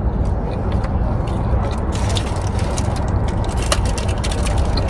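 Close-miked chewing and biting into a bagel sandwich, with many small crunchy clicks that come thicker from about two seconds in, over a steady low rumble.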